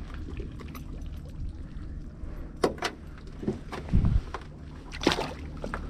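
Several sharp knocks and clatters in a boat over a low steady drone, the loudest a dull thump about four seconds in.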